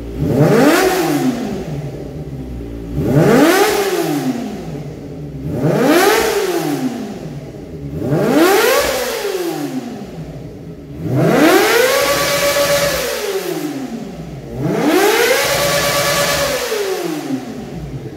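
Kawasaki ZX-25R's 250 cc inline-four, fitted with a Yoshimura carbon exhaust, free-revving on a stand: six throttle blips, each rising and falling in pitch, the last two held near the top for a second or more.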